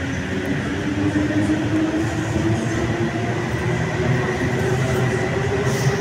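Running noise inside a moving passenger train carriage: a steady rumble of wheels on rails, with a motor whine that slowly rises in pitch and a steady high tone above it.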